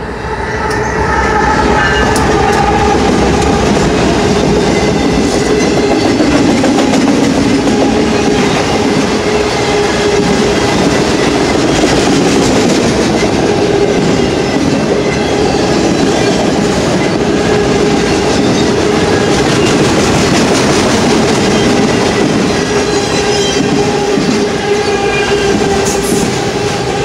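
Freight train passing close by: a BNSF diesel-electric locomotive, then a long string of autorack cars, with steel wheels rolling on the rails in a loud, steady rumble. A steady tone runs through the rumble.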